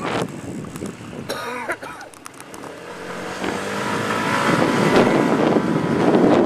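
A motor vehicle engine speeding up, its pitch rising, with a rushing noise that grows steadily louder through the second half.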